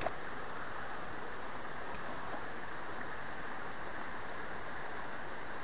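Steady rush of a small rocky stream running through a riffle, a dull, even noise without much hiss.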